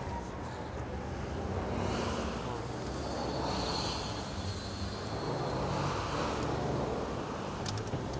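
Diesel engine of a rail vehicle running low and steady, with wind gusting over the microphone in swells.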